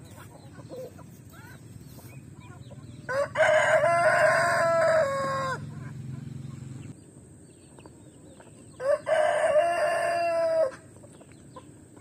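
A rooster crows twice, each crow about two seconds long, a little over five seconds apart, with hens clucking quietly around it.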